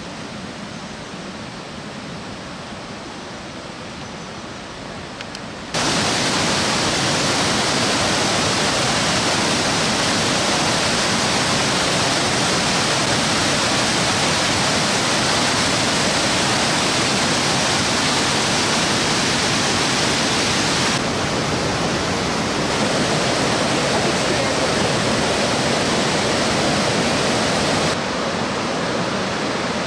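Steady rush of a waterfall, quieter at first and much louder from about six seconds in, with sudden shifts in level about twenty-one and twenty-eight seconds in.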